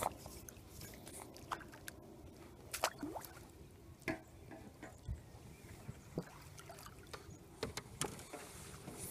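A small skimmer bream splashing at the lake surface as it is drawn in, then scooped into a landing net, giving a string of short, irregular splashes and drips.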